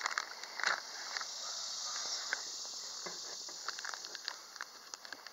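A plastic food package crinkling and rustling as it is handled, in short irregular crackles, with a steadier high hiss for a couple of seconds in the middle.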